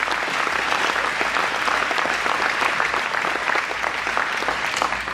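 Audience applauding: a dense mass of hand claps from a large crowd, easing off at the very end.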